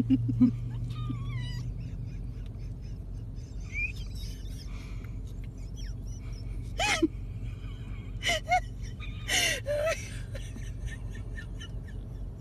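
A small puppy giving a few short, high yaps in the second half, over a steady low hum.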